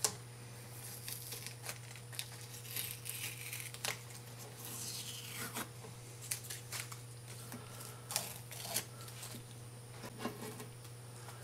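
Blue masking tape being peeled off a guitar headstock from around a freshly glued nut slot: faint tearing and crinkling with scattered small clicks, over a steady low hum.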